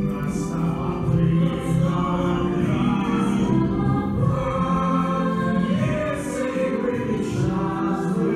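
A choir singing, holding long notes.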